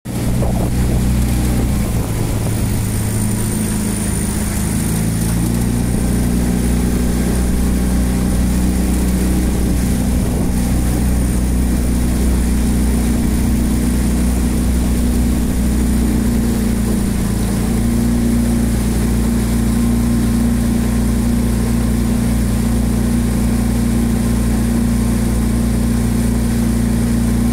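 Small outboard motor running steadily at low speed: an even, low engine hum with only slight shifts in pitch.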